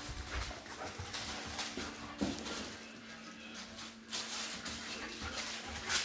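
A Belgian Malinois chewing and mouthing a plush crinkle toy: the toy's plastic lining crinkles and rustles over and over, in uneven spurts.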